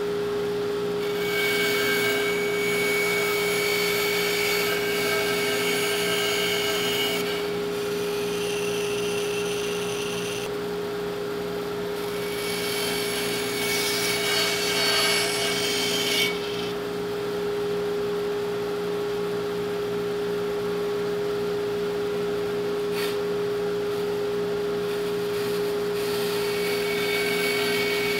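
A bandsaw runs with a steady hum while its blade cuts through two stacked plywood pieces along a curved line. The cutting noise comes and goes in three stretches as the work is fed and turned, with a single click in the quieter middle part.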